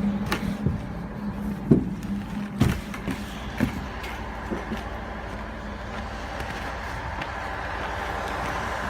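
Steady low hum of running drilling-rig machinery, with a few scattered knocks and clunks in the first few seconds.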